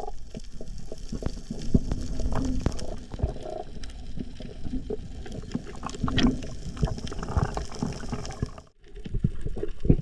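Muffled underwater sound picked up by a camera in its waterproof housing during a freedive: a low rumble with scattered clicks and a few short low tones, broken by a brief dropout near the end.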